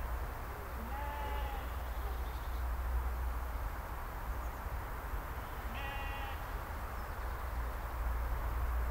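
Sheep bleating twice, a short call about a second in and another about six seconds in, over a steady low rumble.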